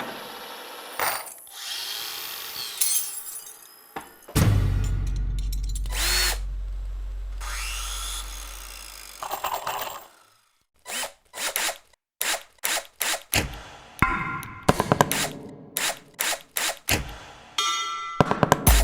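Collage of power-tool and machine sounds: drill-like whirring and scraping, then a deep sustained drone with sweeping tones for several seconds. After a short pause, short sharp knocks and clicks fall into a quickening rhythmic beat that leads into music.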